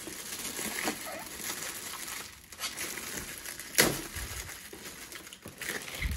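Metallic foil gift wrapping crinkling and rustling as hands pull at it to unwrap a present, with one sharp, loud crackle a little past halfway.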